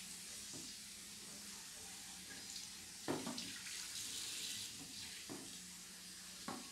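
Tap water running into a ceramic sink and splashing over wet hair as hands rinse it through, with a couple of louder splashes about three seconds in and near the end.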